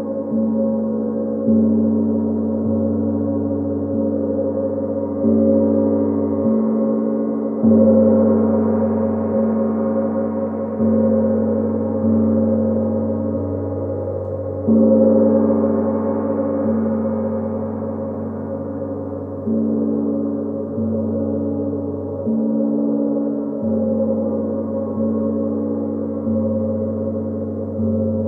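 A gong struck again and again, a fresh stroke every few seconds, each one ringing low and fading slowly under the next so the tones overlap into a continuous wash.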